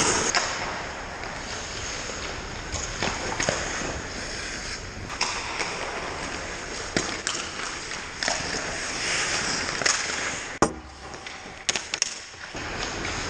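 Ice hockey play: skate blades scraping and hissing on the ice, with scattered sharp clacks of sticks and puck, the sharpest about ten and a half seconds in and a quick cluster of them just after.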